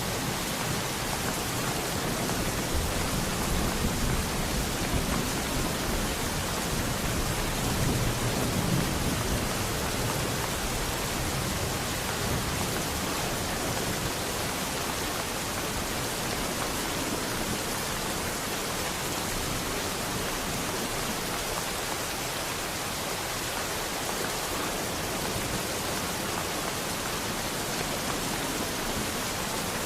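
Steady heavy rain hiss, with a low rumble of thunder rolling through the first third and fading away.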